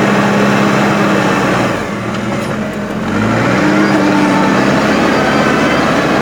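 Diesel engine of a Hydrema 906D backhoe loader running hard while it digs and moves dirt. It eases off about two seconds in and picks back up a second later.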